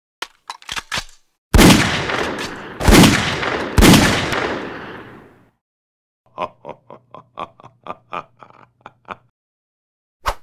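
Cartoon shotgun sound effects: a few quick clicks, then three loud blasts, each with a long fading tail. About six seconds in, a run of about a dozen short, evenly spaced pulses plays over a low hum.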